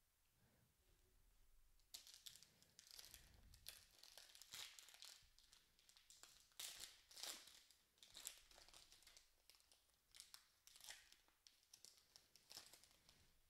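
Foil wrapper of an Upper Deck hockey card pack being torn open and crinkled in the hands: faint, irregular crackling that starts about two seconds in.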